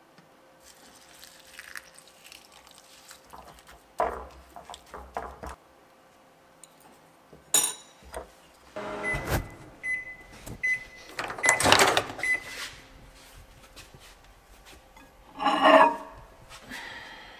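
Kitchen handling sounds while making microwave oats: a spoon clinking and scraping in a ceramic bowl and several knocks and clatters. A microwave oven's keypad beeps several times in short, even, high beeps about ten seconds in.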